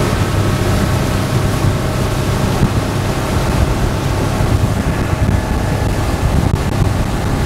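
Sea Ray speedboat running at speed on the water: a steady engine drone with wind buffeting the microphone and water rushing past the hull.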